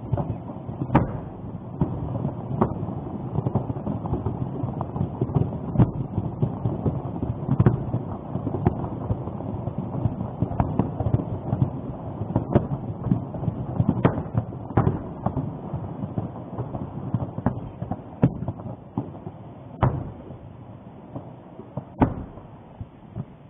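Rumble of an explosive eruption of Popocatépetl volcano, broken by irregular sharp cracks and bangs. The rumble eases off in the last few seconds.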